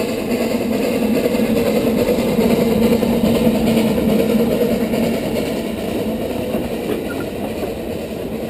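A vehicle's engine running with a steady drone that swells to its loudest a few seconds in and then slowly fades.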